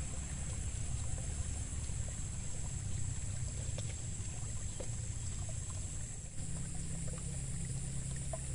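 Water trickling and running in a small field irrigation ditch, a steady outdoor bed with a low rumble and a steady high insect hum.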